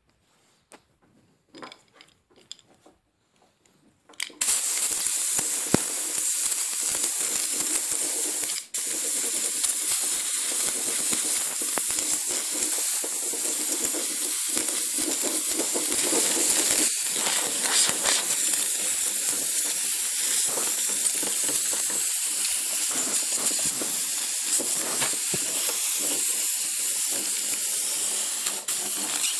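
Near silence for about four seconds, then a compressed-air blow gun hisses steadily as it blasts paint off a wooden door panel, cutting out briefly once about four seconds after it starts. The paint being blown off is an alkyd top coat that bonds only weakly over the linseed oil paint beneath.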